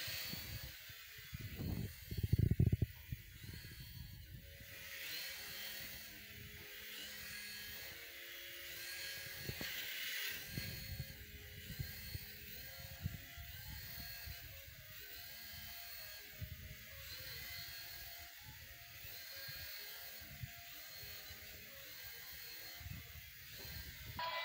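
Small toy flying helicopter's rotors whirring as it hovers above a hand, the motor's whine rising and falling in pitch over and over as it climbs and dips. Low rumbling thumps come and go underneath, loudest about two to three seconds in.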